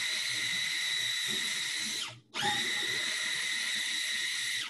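Small electric food processor pulsed in short runs, blending a thick lentil mixture. Its motor gives a steady whine that cuts off about two seconds in, starts again a moment later and stops again near the end.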